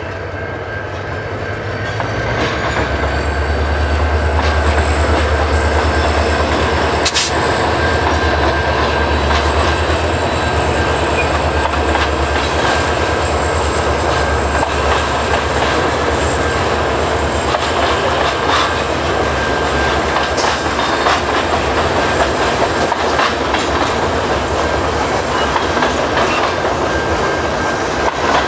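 CN freight train rolling past close by: the trailing SD40-2W diesel locomotive and then a string of covered hopper cars, wheels clacking over the rail joints, with a deep rumble that builds a few seconds in. A thin steady high tone runs underneath, and a single sharp clank sounds about seven seconds in.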